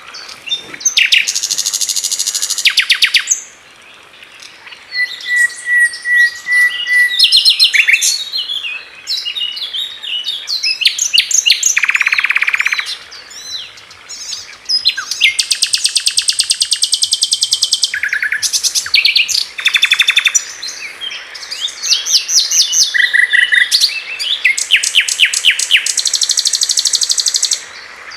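Common nightingale singing a string of varied phrases with short pauses between them: fast runs of repeated notes, a row of short pure whistles, and one lower, buzzy phrase.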